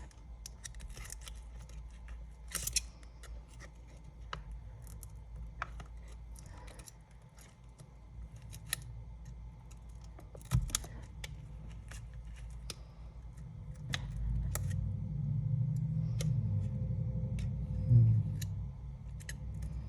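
Scattered small clicks and ticks of tools prying and cutting at the adhesive under an iPad's front glass, over a steady low hum. A louder low rumble comes in about two-thirds of the way through, with a sharp knock near the end.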